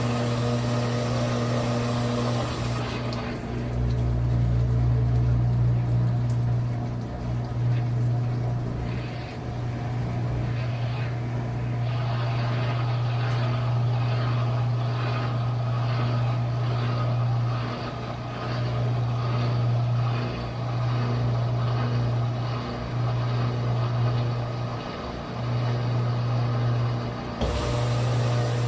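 Brastemp 9 kg washing machine spinning: a steady low motor hum that swells and dips every second or two as the drum turns.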